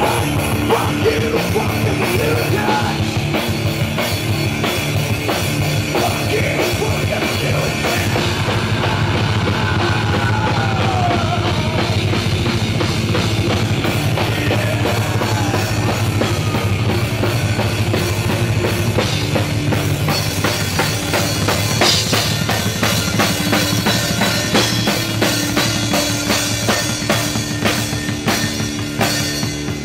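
Live rock band playing loud and fast: a drum kit with closely spaced hits and cymbals, under bass guitar and guitars, with no vocals.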